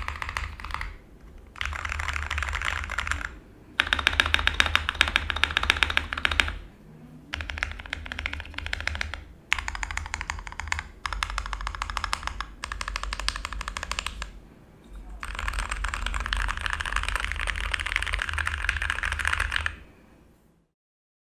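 Fast typing on a Gamakay K61 mechanical keyboard with Gateron Brown tactile switches: rapid key clicks in about eight bursts of one to four seconds, separated by short pauses, stopping about twenty seconds in.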